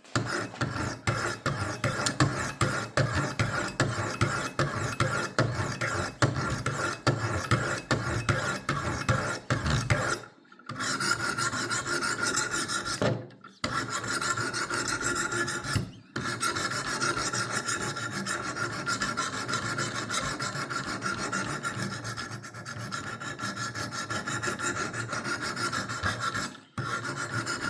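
200-grit stones of a Wicked Edge WE60 guided sharpener rasping along the edge of a blunt kitchen knife in quick repeated strokes, grinding a new bevel toward a burr. There are brief pauses about 10, 13, 16 and 27 seconds in.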